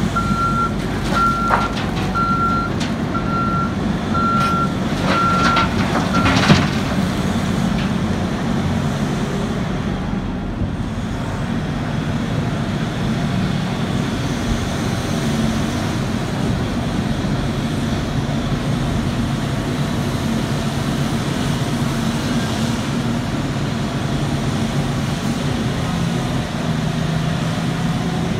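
Heavy diesel engine of a Terex RH170 hydraulic mining shovel running steadily under load as it digs and loads a haul truck. For the first six seconds a reversing alarm beeps at an even pace, with several sharp knocks, the loudest about six and a half seconds in.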